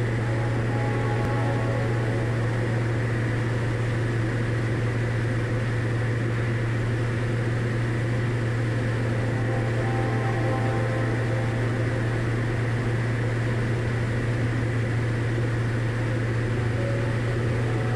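Diamond DA40's engine and propeller droning steadily in level cruise, heard inside the cockpit as a constant low hum under an even rush of noise.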